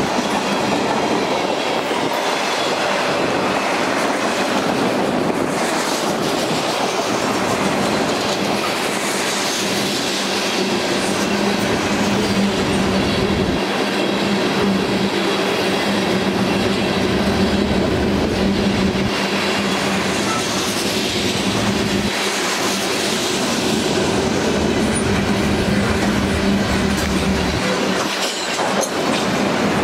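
Freight train cars, autoracks and covered hoppers, rolling steadily past on steel wheels, a continuous heavy rumble and rattle of the passing train with a steady hum running through much of it.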